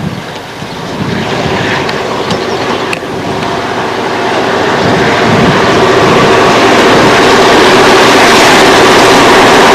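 Diesel locomotive of a freight train approaching, its engine drone growing steadily louder over the first six seconds or so and then running loud and steady.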